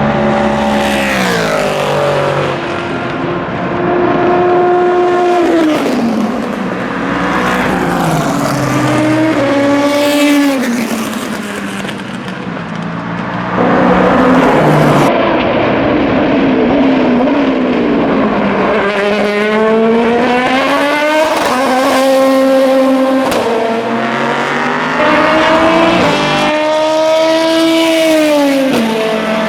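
Endurance race cars (Le Mans prototypes and GT cars) passing at speed one after another, their engine notes falling and rising through gear changes as they go by.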